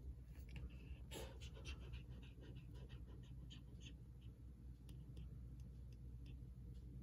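A cat panting: faint, quick breaths, about four a second, through the first two thirds.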